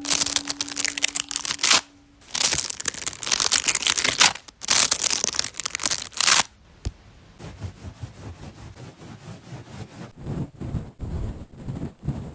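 Close-miked scratching and crinkling of an ear-cleaning session, in three long rustling stretches over the first six seconds, then softer irregular crackles and ticks.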